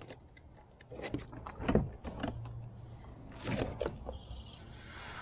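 Gear being handled on a plastic kayak while a fish shot with a bowfishing arrow is hauled in: a string of clicks and knocks of the bow, line and paddle against the hull, with a stretch of hiss from about three and a half seconds in.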